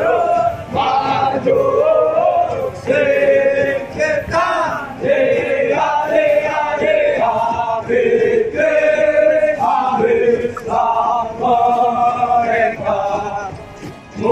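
A group of soldiers singing a military marching song together in unison while jogging in formation, in short phrases with brief breaks between them.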